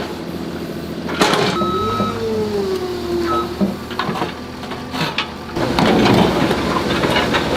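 Heavy construction machinery running loud, with an engine drone, a brief sliding whine and scattered knocks and clatter. It grows louder and rougher about five and a half seconds in.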